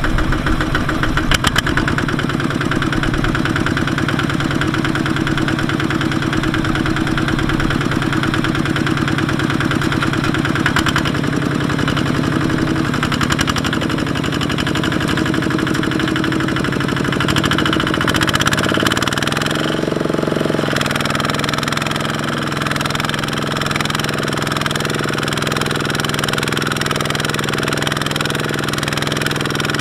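Kubota RT155 two-wheel tractor's single-cylinder diesel engine running with a steady knocking beat as it works its drive wheel through deep mud. About two-thirds of the way through the engine speeds up and then holds the higher speed.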